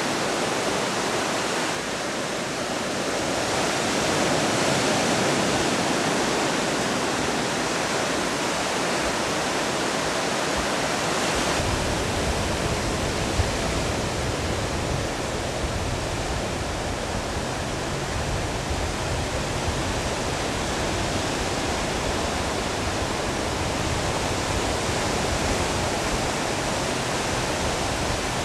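Steady rushing noise of ocean surf and wind. About twelve seconds in a low rumble joins it and carries on.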